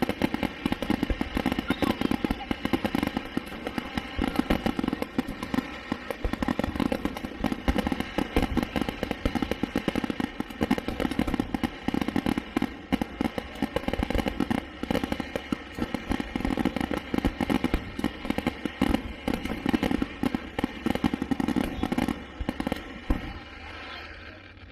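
Fireworks display going off in a rapid, continuous string of bangs and crackles, dying away near the end.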